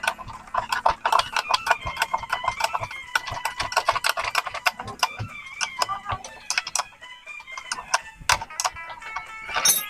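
Rapid, irregular metallic clicks and ticks of hand tools working on a motorcycle's front fork, with wavering high tones behind.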